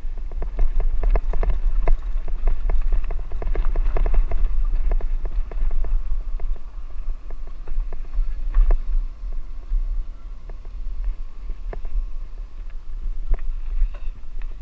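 Wind buffeting the camera microphone in a steady low rumble, with rapid rattling knocks as the bike jolts over a rough dirt track. The knocks are densest in the first half and thin out after about six seconds.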